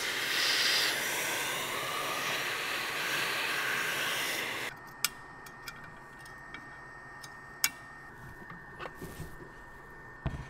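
Vacuum hose sucking up fine stainless steel metal powder from a 3D-printed build plate, a loud steady hiss that cuts off suddenly about four and a half seconds in. After that come a few light clicks and knocks of metal parts being handled.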